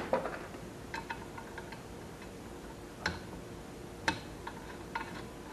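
Light metallic clicks and taps as small parts are handled and fitted on a sheet-metal tractor dash panel: a quick run of small clicks about a second in, then sharper single clicks near three and four seconds in.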